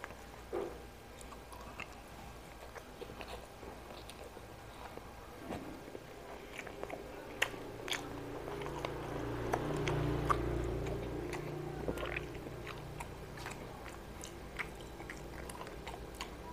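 Close-miked mukbang eating sounds: chewing rice and fried dried fish with lip smacks and many short, sharp mouth clicks. A low hum swells and fades again in the middle.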